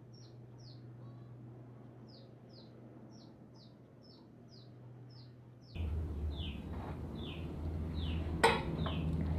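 A small bird chirping over and over: short high chirps that drop in pitch, about two a second. A little over halfway through, a louder low rumble comes up underneath, and a single sharp click sounds near the end.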